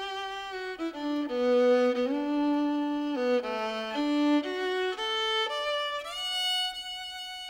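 Fiddle music: a single bowed melody line moving note to note, with slides between some notes.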